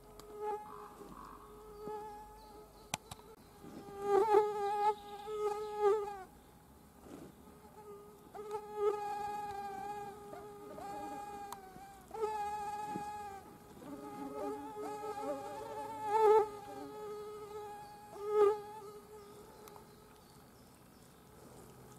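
A mosquito caught in a spider web buzzing its wings in repeated spells as it struggles to get free: a thin, high buzz with several overtones that swells, breaks off and starts again. There is one sharp click about three seconds in.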